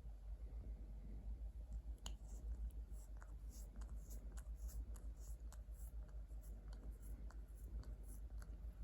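Faint, irregular light clicks and scratching over a steady low hum; the clicks start about two seconds in.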